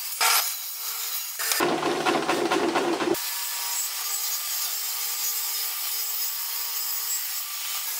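Table saw blade cutting through pallet wood, in spliced clips. A short burst comes just after the start, then a fuller, deeper-sounding cut from about one and a half to three seconds that stops abruptly. After that comes a long, steady, even cut as the glued-up panel is fed through.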